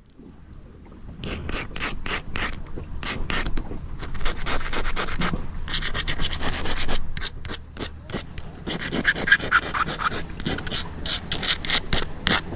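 A blade scraping and shaving a wooden stick in a run of quick, irregular strokes: the pointed end of a tajur pole being sharpened.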